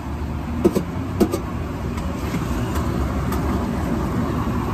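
Steady low rumble of a running motor vehicle, with two sharp clicks about half a second apart around one second in.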